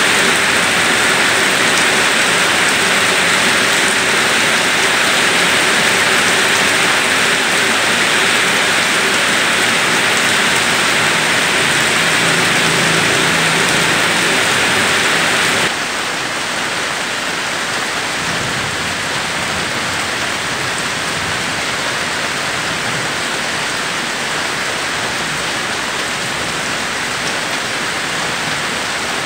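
Steady rain falling on a wet concrete path and gravel, a dense even hiss of drops that turns suddenly a little quieter about halfway through.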